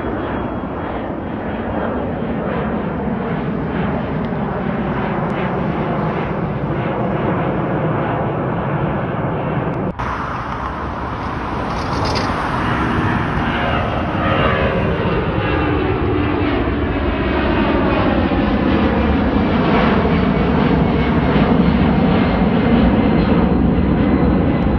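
Jet engines of a Boeing 757-200 climbing out after takeoff: a steady loud roar. After a break about ten seconds in, whining engine tones glide steadily downward as it passes overhead and draws away.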